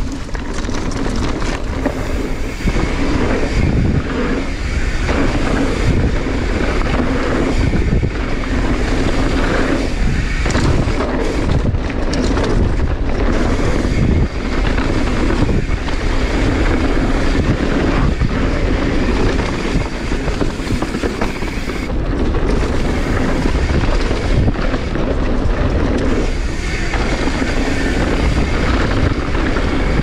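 Wind rushing over the camera microphone on a fast mountain bike descent, with tyre noise and the bike clattering over rough ground in many short knocks.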